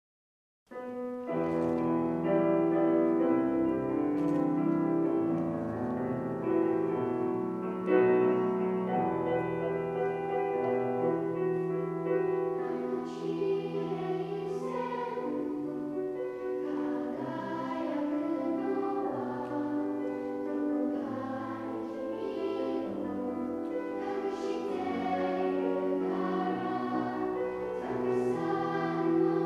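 Children's choir singing in parts, with sustained chords that start suddenly about a second in after silence.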